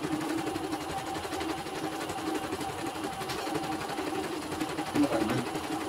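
CNY portable embroidery machine stitching a test design at a steady, fast, even pace as its needle and hoop work through the pattern.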